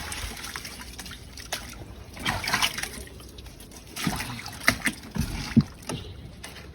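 Water splashing and trickling in irregular bursts as freshly caught live fish move about in water.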